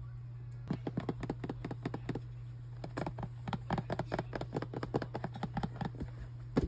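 A kitten scratching and biting at something: a rapid, irregular run of small scratches and taps that starts about a second in, over a steady low hum.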